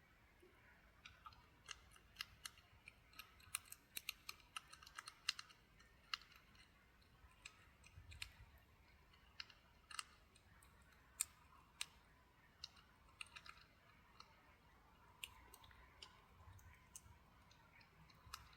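A hedgehog crunching dry cat biscuits: faint, irregular sharp crunches, thickest in the first few seconds and sparser later.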